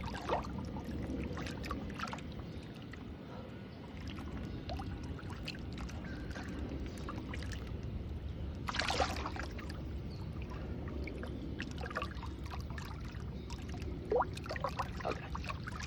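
Water sloshing and trickling as a crevalle jack is held in the water to revive it before release, over a steady low background noise, with one short loud splash about nine seconds in.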